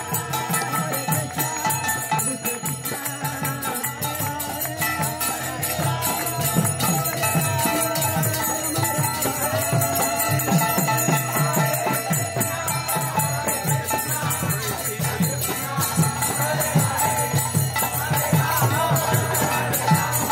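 Devotional kirtan: voices chanting over a steady beat of drum and jingling hand cymbals (karatalas).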